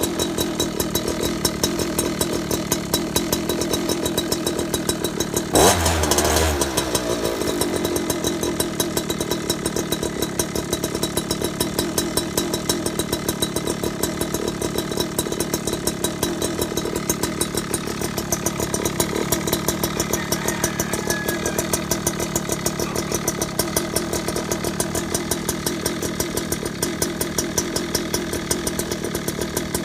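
71cc two-stroke scooter engine with a tune pipe (expansion chamber) exhaust, idling with a fast, even beat. About six seconds in it gives one short rev, and the pitch falls back to idle over the next second.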